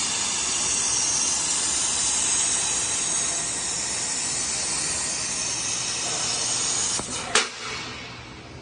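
Laser cutter cutting through 6 mm metal plate, its gas jet hissing steadily. About seven seconds in the hiss cuts off with a click, followed by a single sharp snap.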